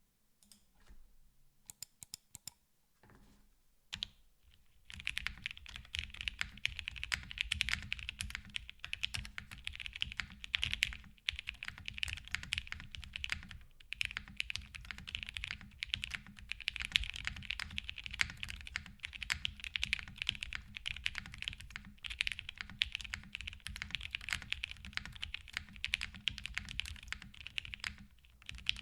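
Typing on a custom ai03 Polaris 60% mechanical keyboard with lubed Lavender linear switches, an FR4 half plate, no foam and GMK keycaps, giving a mix of thock and clack. A few scattered keystrokes come first, then steady, fast typing from about five seconds in.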